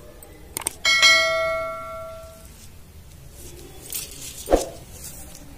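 Subscribe-button sound effect: two quick clicks, then a bright bell ding that rings out and fades over about a second and a half. A single sharp knock comes near the end.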